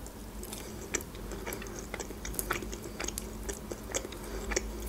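Close-up chewing of soft mackerel, with wet mouth smacks and clicks at irregular intervals.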